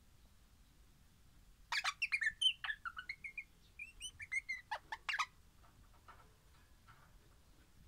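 Crimson rosella (pennant rosella) calling: a quick run of short notes and rising and falling whistles lasting about three and a half seconds, starting just under two seconds in.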